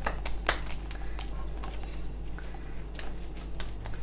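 Greased hands squeezing and shaping a sticky date-and-nut mixture into a roll over a steel plate: soft squishing with scattered sharp clicks, the sharpest about half a second in.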